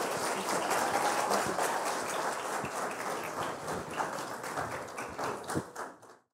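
Audience applauding, the clapping slowly thinning and fading, then cutting off suddenly near the end.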